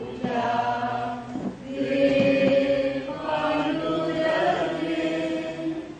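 Slow liturgical chant sung by voices, with long held notes that change pitch every second or so.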